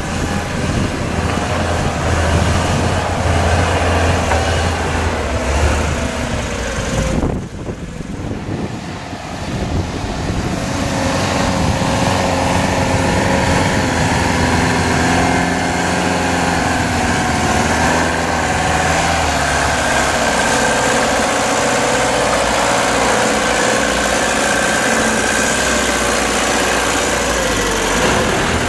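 Mercedes Unimog U421's 2.4-litre four-cylinder diesel engine running at low revs while the truck crawls off-road, its pitch rising and falling a little with the load. There is a brief dip in the sound about seven seconds in.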